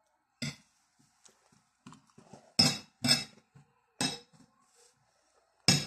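Metal spoon and fork knocking and scraping against a ceramic plate while scooping food: five sharp clinks, two of them close together in the middle, with faint small clicks between.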